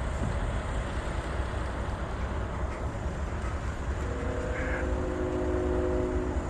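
Low steady rumble of a long freight train rolling slowly past. From about four seconds in, a distant locomotive air horn sounds one long chord of several notes at once, from an approaching Norfolk Southern train.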